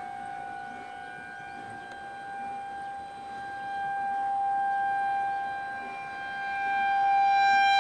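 Outdoor tornado warning siren sounding one steady, held tone, swelling and fading in loudness, loudest near the end.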